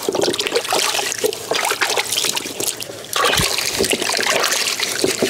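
Water sloshing and splashing in a plastic tub as a whole ash gourd is scrubbed and turned by hand, louder from about three seconds in.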